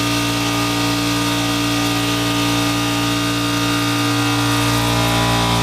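An engine idling steadily at a constant pitch.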